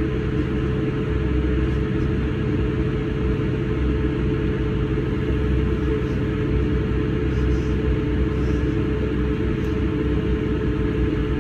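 Steady rumble and drone of a South Western Railway diesel multiple unit, heard from inside the carriage as the train rolls slowly along a platform, with a constant hum running through it.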